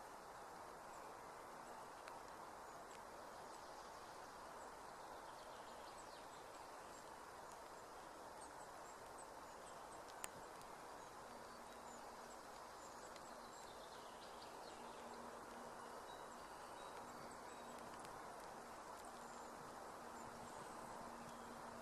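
Faint outdoor ambience: a steady soft hiss with scattered tiny high chirps from birds or insects, a single sharp click about halfway, and a faint low hum joining soon after.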